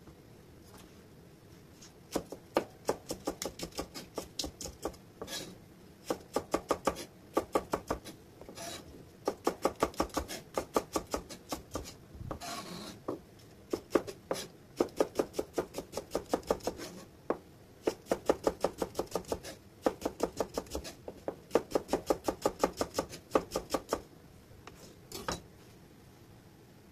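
Kitchen knife slicing a Japanese long green onion diagonally on a cutting board: quick, even cuts at about four a second, in runs of a few seconds broken by short pauses.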